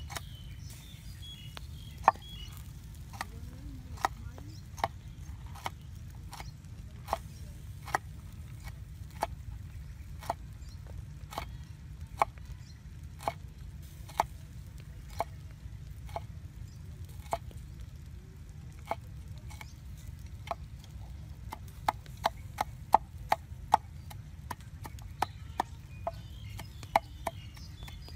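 Cleaver chopping green vegetables on a wooden cutting board: sharp knocks about once a second, quickening to several a second near the end, over a steady low hum.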